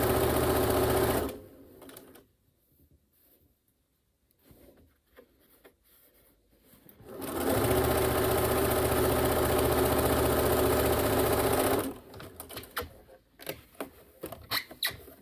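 Bernina sewing machine stitching a narrow hem in cotton fabric. It runs for about a second, stops for several seconds while the fabric is handled, then runs steadily again for about four and a half seconds. A scatter of short clicks and handling noises follows near the end.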